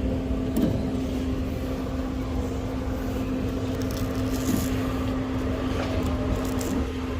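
Engine idling steadily, a constant low hum, with a few faint knocks and rattles over it.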